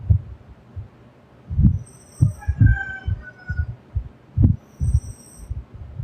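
A sleeping person snoring: uneven, low throbbing pulses, with a hissing breath twice.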